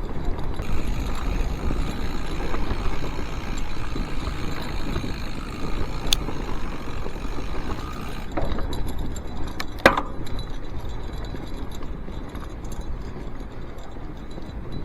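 Giant Yukon 1 fat bike riding through snow: the steady rolling noise of its wide tyres and drivetrain, with a sharp clink about six seconds in and another about ten seconds in.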